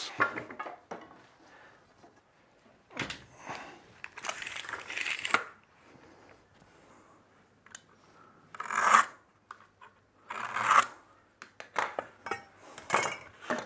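Bench handling noises: wooden boards knocked and slid on a workbench, with a longer scrape about three seconds in, two short scrapes later, and a run of light clicks and taps near the end.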